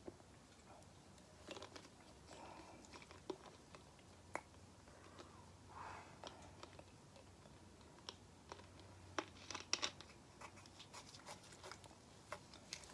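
Faint crinkling and scattered clicks of a plastic soda bottle being handled as its screw cap is twisted, with a few sharper clicks near the middle.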